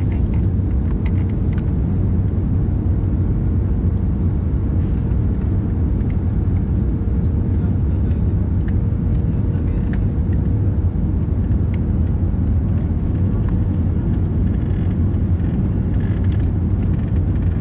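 Airliner cabin noise: a constant rumble from the engines and airflow, with a faint steady hum, unchanging throughout.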